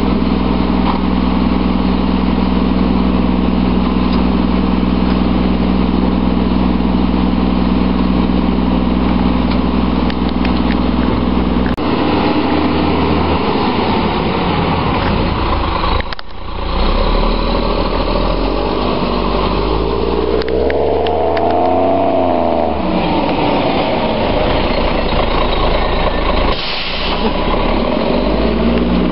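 Diesel engine of a Volvo WXLL front-loader garbage truck running steadily at idle. Past the middle it revs up and back down once, and near the end there is a short burst of hiss.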